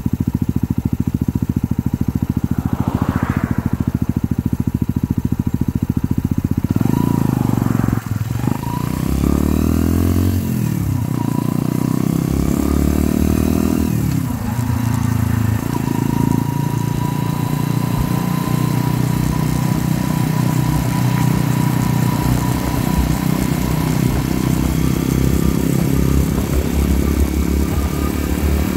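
Mutt Akita 125's single-cylinder engine running through its glass-fibre-repacked slash-cut exhaust while the bike is ridden. The note is steady at first; from about seven seconds in it rises and falls several times, then settles into a steady cruise, with rushing wind noise over it.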